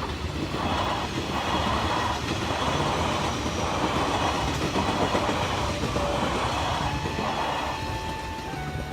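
A train running past on the line, its wheels clattering over the rail joints in an even rhythm of about one beat a second. Near the end a steady tone comes in and falls slightly in pitch.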